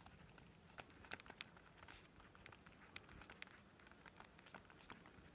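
Faint scratching and light irregular ticks of a pen writing on notebook paper.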